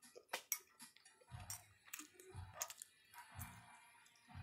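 Faint eating sounds: a metal fork clicking and scraping against a bowl several times, with soft chewing thumps about once a second.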